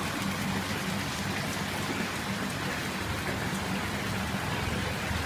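Steady splashing of water as a dense crowd of koi churns at the pond's surface.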